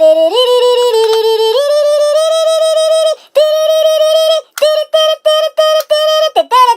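A high-pitched voice singing a wordless melody. It holds long steady notes that step up and down in pitch, breaks off about three seconds in, then sings short repeated notes and slides down near the end.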